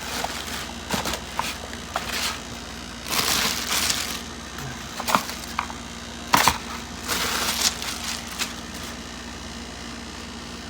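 Plastic packaging crinkling and rustling in irregular bursts as it is pulled off a new cordless circular saw, with a sharp click about six and a half seconds in. It goes quieter over the last couple of seconds.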